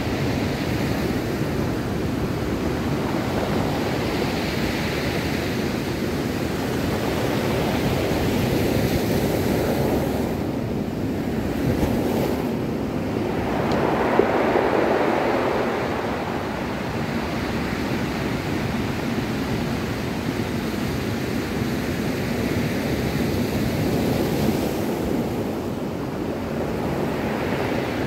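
Ocean surf breaking and washing over a cobble beach: a steady rushing wash that swells louder with each incoming wave, a few times.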